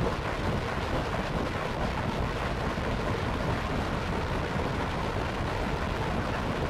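A steady, even rumbling noise with no clear tones or rhythm, from the added soundtrack rather than the screen recording.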